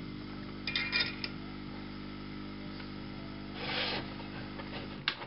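A few small metallic clinks and handling knocks of hand tools and a circuit board on a workbench: a cluster of ringing clinks about a second in, a short rustle just before four seconds and a sharp click near the end. A steady electrical hum runs underneath.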